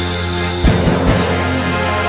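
Dramatic orchestral soundtrack music: held notes with low drum hits about halfway through.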